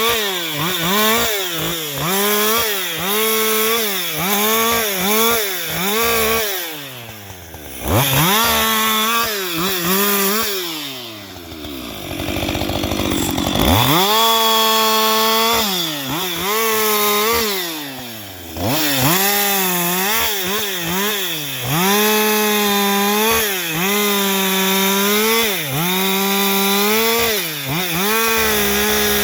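Husqvarna 560XP two-stroke chainsaw running at full throttle in long bursts. The pitch sags and recovers about once a second, and the engine falls back toward idle three times before revving up again.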